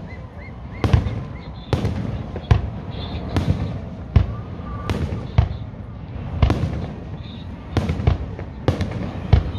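Aerial fireworks shells bursting overhead, about ten sharp bangs at roughly one a second, each with a short low echo.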